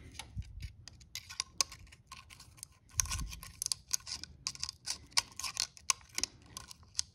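Irregular small metallic clicks and scrapes of hand tools and a feeler gauge being worked at the valve adjuster of a small Honda 50 engine, where the valve clearance is still too tight for the gauge to slip in. A low thud comes just after the start and another about three seconds in.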